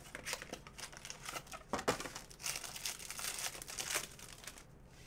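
Foil wrapper of a trading-card pack crinkling and tearing as it is pulled open by hand, a quick irregular run of crackles.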